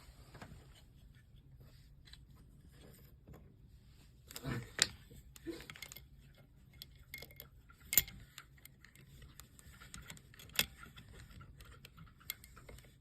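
Stapler and staples being handled, with faint metallic rattling and scattered small clicks. There is a louder clatter about four to five seconds in, and sharp single snaps at about eight and ten and a half seconds.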